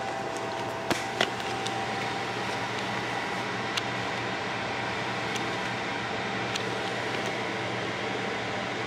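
Thin beef steaks sizzling in a hot frying pan: a steady hiss with scattered small pops, over a faint steady hum. Two sharper clicks about a second in.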